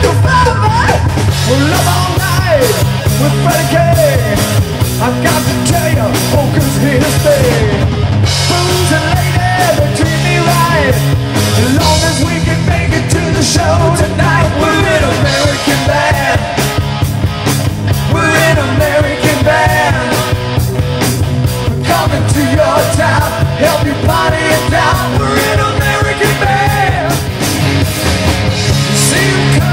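Live rock band playing an instrumental stretch with no vocals: electric guitars, bass and a drum kit, loud and steady. Over it, a lead electric guitar plays bending, sliding lines.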